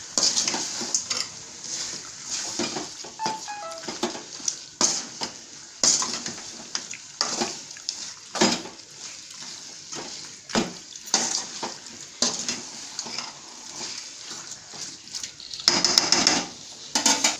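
Metal ladle scraping and knocking against an aluminium pot as chicken pieces are stirred into a thick masala: irregular clanks and scrapes, with a louder run of scraping near the end.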